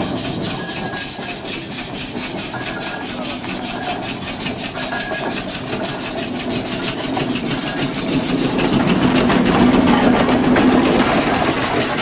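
Fowler steam traction engine under way, its exhaust beating in a quick, even rhythm with a rasping, sawing edge and mechanical clatter. It grows louder for a few seconds from about eight seconds in as the engine passes closest.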